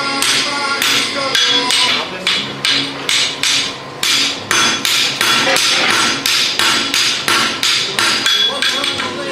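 Hand hammer forging a red-hot steel horseshoe on an anvil. The blows come in a steady rhythm of about two to three a second, each one ringing off the anvil.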